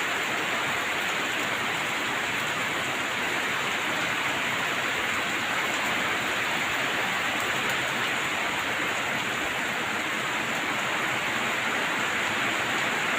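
Heavy rain falling, an even, unbroken hiss.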